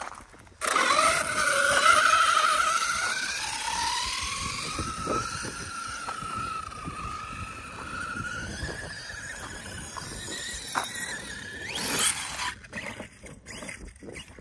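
Arrma Kraton 6S radio-controlled truck running flat out: the high whine of its brushless motor and geartrain, wavering in pitch. It starts suddenly, is loudest at first and fades slowly. Near the end a sharp rising whine as it accelerates, then it drops away.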